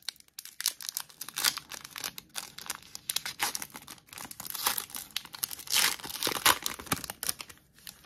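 A foil trading-card pack wrapper being torn open and crinkled by hand: an irregular run of sharp crackles and rips.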